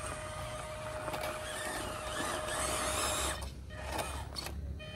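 Electric motor and drivetrain of a 1/18-scale FMS Toyota Hilux RC crawler whining steadily as it climbs over rocks. The whine cuts out a little past three seconds in, with a couple of sharp clicks while it is off.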